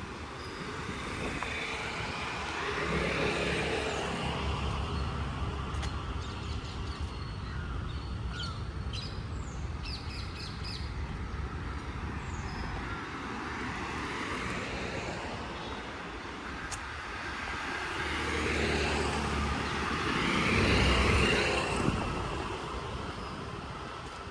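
Road traffic passing, with two louder vehicle pass-bys, one about three seconds in and one near the end, and birds chirping in between.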